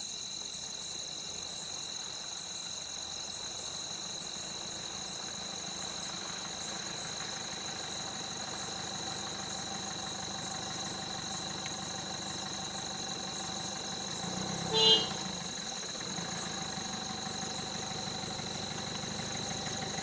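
Crickets chirping steadily over a low, steady engine hum, like a vehicle idling. About fifteen seconds in, a brief, louder sound with a clear pitch cuts through.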